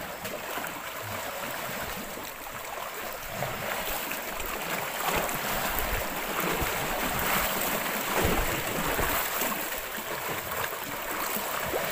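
Small lake waves lapping steadily against shoreline rocks, with wind.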